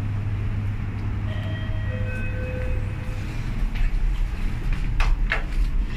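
Otis Gen2 lift arriving and opening: over a steady low hum, a short chime of several overlapping tones sounds about a second in, followed by the sliding landing doors and a few sharp clicks and knocks near the end.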